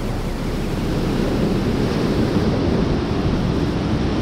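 Ocean surf washing against a rocky shore, a steady rushing noise, with wind buffeting the microphone.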